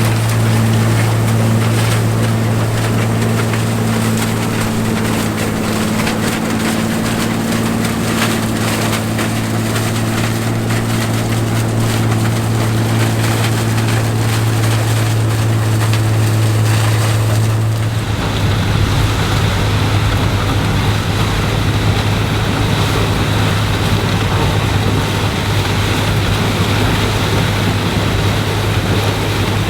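Classic combine harvester engine running steadily under load while harvesting corn, with wind noise on the microphone. About eighteen seconds in the sound changes abruptly to a rougher, noisier engine, another machine after a cut.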